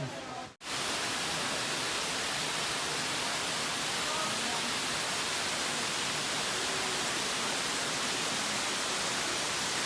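Steady rush of a waterfall, starting just after a short break about half a second in, with faint voices under it.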